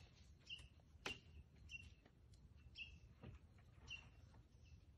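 Near silence in woodland, with a faint bird giving the same short chirp over and over, roughly once or twice a second, and a couple of faint clicks.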